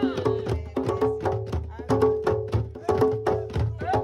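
A group of djembe hand drums played together in a fast, even rhythm of sharp slaps over ringing deeper tones.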